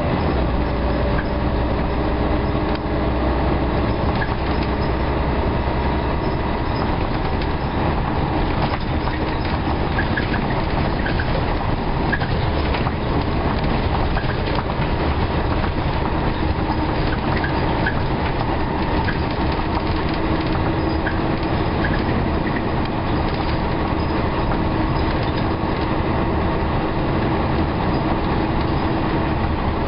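Scania L113CRL single-decker bus running: a steady drone from its six-cylinder diesel engine with the whoosh of the cooling fan ('hoovering'), and light rattles from the body.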